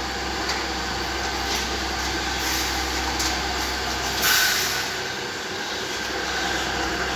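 Steady machinery hum and noise, with a short loud hiss about four seconds in as the low hum briefly drops away.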